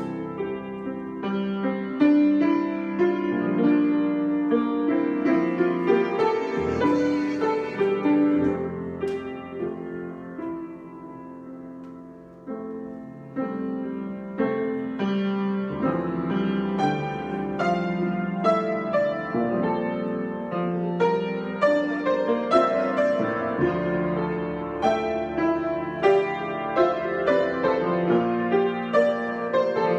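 Solo piano improvisation: sustained chords and melody notes, softening about a third of the way in, then building back up to busier, louder playing.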